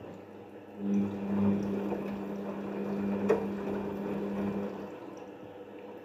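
Daewoo DWD-FT1013 front-loading washing machine tumbling its load in the rinse: the drum motor hums steadily for about four seconds while water and wet laundry slosh in the drum, then stops, as in the stop-start turning of a rinse cycle. A single sharp click comes partway through.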